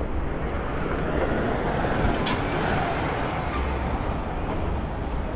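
Busy city street traffic: a steady wash of engine and tyre noise with a low rumble, swelling for a few seconds as a garbage truck passes close by.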